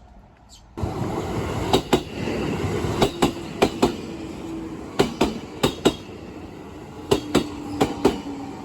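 A train passing close by: the noise rises suddenly about a second in, then the wheels click over the rail joints in close pairs, over and over, with a steady hum underneath. A bird chirps once just before the train arrives.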